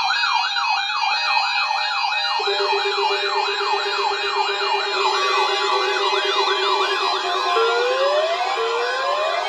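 Layered electronic siren tones: a fast up-and-down warble about three times a second with higher sweeps over it. A steady low tone joins about two seconds in, and rising glides come in near the end.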